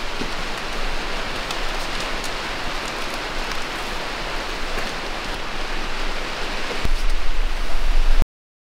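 Steady rain on the roof, an even hiss of falling rain. About seven seconds in it grows louder with a low hum underneath, then the sound cuts out abruptly.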